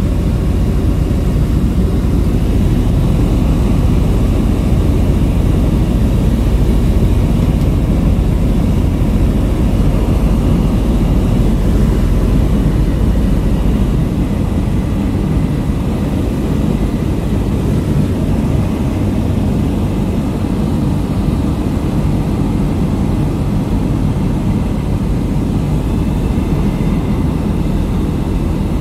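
Light aircraft's propeller engine droning steadily, heard from on board the plane. The deep low rumble eases a little about halfway through.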